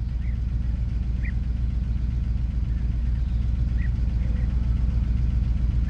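Diesel power pack of a self-propelled modular transporter running steadily as it moves a heavy load, a deep, even rumble.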